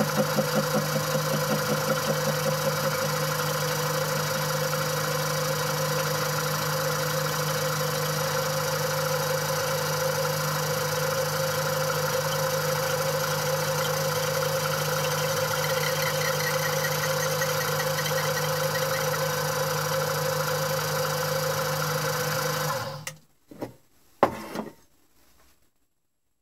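Benchtop mini mill spindle running a 1.5 mm slitting saw through a metal workpiece to cut a slot: a steady machine hum that pulses for the first few seconds. The spindle stops about 23 seconds in, followed by a few short knocks.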